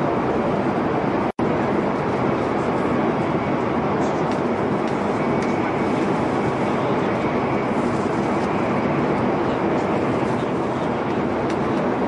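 Metro train running at speed: a steady, dense rumble and rush of wheel and motion noise. The sound cuts out for an instant about a second in.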